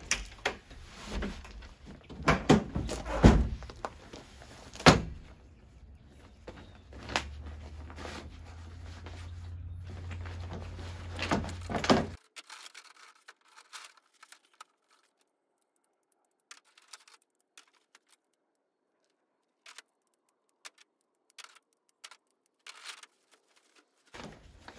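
Clunks and thunks of a pickup truck's camper-shell hatch and tailgate being opened and handled, several sharp knocks over the first half. It then drops to near silence with scattered faint clicks and rustles as a portable cot is unpacked from its bag.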